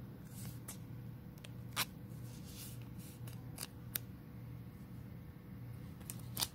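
Thin plastic penny sleeve crinkling and clicking as a Pokémon trading card is slid into it and handled. There are a few sharp crackles, the loudest near the end, over a low steady hum.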